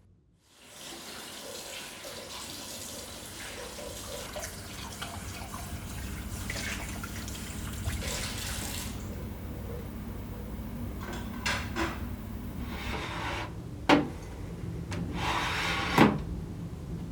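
Water running, with a steady hiss that eases off about halfway through, then two sharp knocks near the end.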